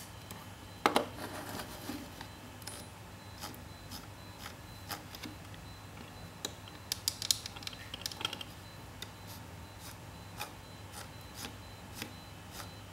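Small plastic clicks and rattles from a partly disassembled Logitech M170 wireless mouse as it is handled and its scroll wheel turned. The loudest clicks come about a second in and in a quick run about seven seconds in.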